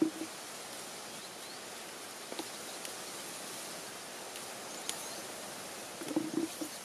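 Black currant bush being picked by hand: leaves and branches rustle, with a few soft knocks and a short cluster of them near the end, over a steady outdoor hiss.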